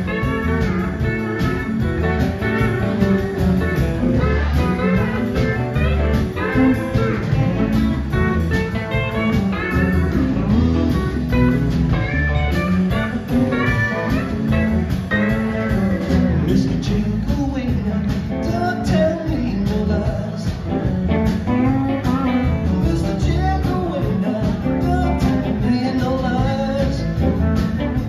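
Live blues band playing with electric guitars, pedal steel guitar, bass guitar and drums.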